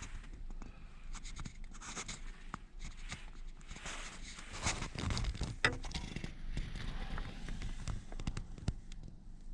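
Small handling noises inside a car: scratching, scraping and light knocks of objects being moved, with a sharper click about five and a half seconds in.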